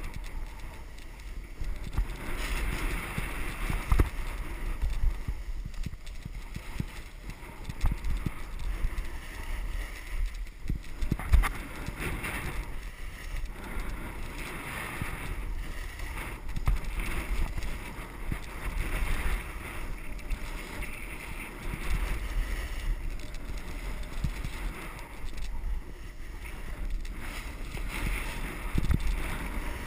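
Skis hissing and scraping over packed snow while wind buffets the microphone of a body-worn camera, as a low rumble with swells of hiss as the skier turns. A few sharp knocks come through, the loudest about four seconds and eleven seconds in.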